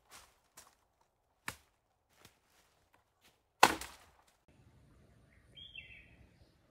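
A few scattered sharp snaps, the loudest about three and a half seconds in. After that comes faint outdoor ambience with a brief chirp near the end.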